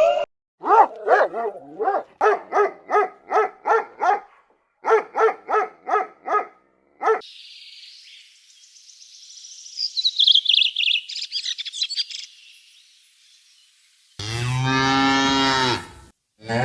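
A run of short, high-pitched animal calls, about three a second with one brief pause. Then high chirps over a steady hiss, and near the end a cow mooing once, long and low.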